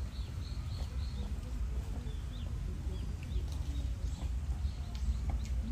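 Small birds chirping in short, high calls scattered through a steady low background rumble.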